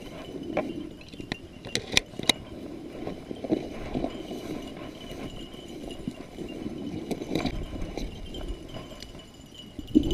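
Footsteps crunching and brushing through dry prairie grass, with a few sharp metallic clicks about two seconds in as shells are loaded into a shotgun.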